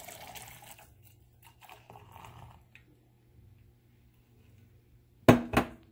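Coffee pouring from a Chemex glass carafe into a stainless steel tumbler, the stream thinning out and stopping about a second in. Near the end come two sharp knocks a fraction of a second apart, each with a short ring, the loudest sounds here.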